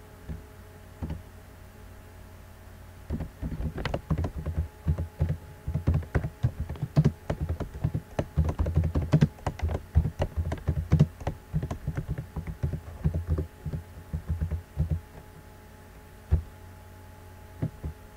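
Typing on a computer keyboard: a quick run of key clicks lasting about twelve seconds, then a few single key presses near the end, over a steady low electrical hum.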